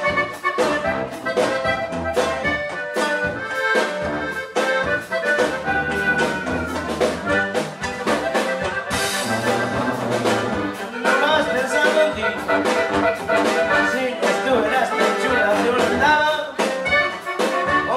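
Live norteño band playing an instrumental passage: sousaphone bass line and strummed bajo sexto keeping a steady beat under an accordion melody, with a brief cymbal-like splash about halfway through.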